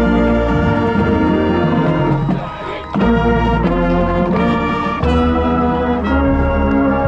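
Marching band brass playing loud, sustained chords, with a brief drop in volume a little over two seconds in before the full band comes back in.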